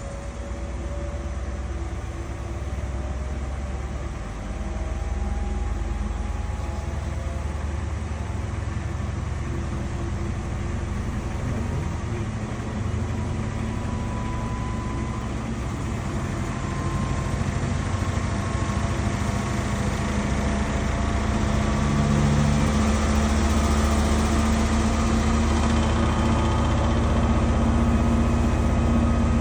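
Danube 20 kg washing machine running, its drum motor whining in slowly rising pitch and growing louder as the drum speeds up, as when it ramps into a spin.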